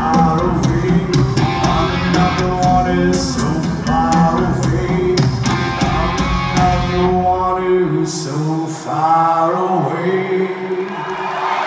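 Live rock band playing, with a male lead singer over guitars, bass and drums, recorded from the crowd. About eight seconds in the bass and drums drop out, leaving the voice over lighter accompaniment.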